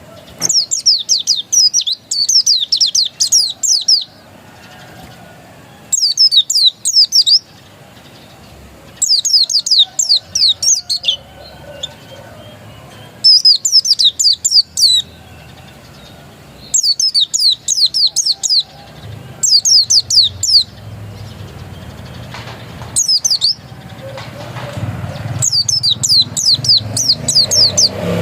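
Pleci dakun white-eye singing in repeated bursts of rapid, high, down-slurred chirps, each phrase one to four seconds long with short pauses between. A low rumble builds up under the song near the end.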